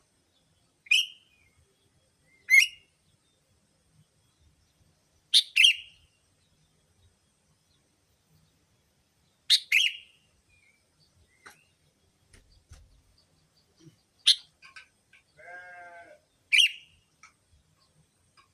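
Sooty-headed bulbul (kutilang) lure calls: short, sharp, downslurred chirps repeated every few seconds, several in quick pairs. A quieter, drawn-out buzzy note comes about three-quarters of the way through.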